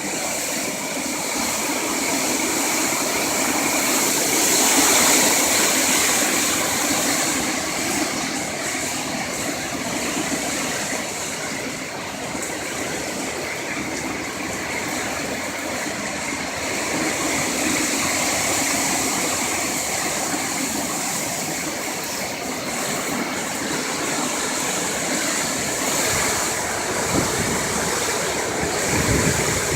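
Hurricane-force wind with rain: a steady rushing noise that swells twice and eases again.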